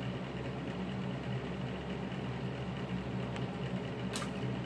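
A steady low hum, like that of a running appliance or fan, with one sharp snap about four seconds in as kitchen scissors cut through a seafood shell.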